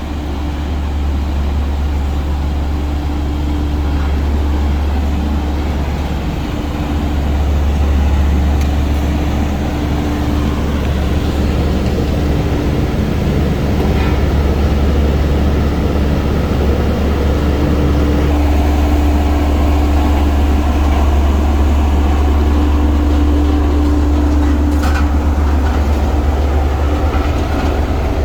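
Heavy diesel construction machine running steadily while working, a deep continuous rumble with a hum that fades in and out.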